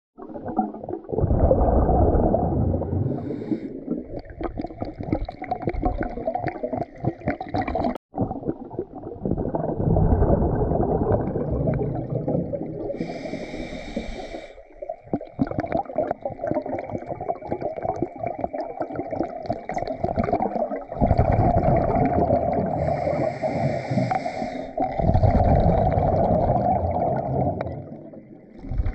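River current rushing and gurgling, heard underwater through a GoPro's waterproof housing: a muffled, low noise that swells and fades every few seconds, with a few short hissing surges. The sound cuts out for an instant about eight seconds in.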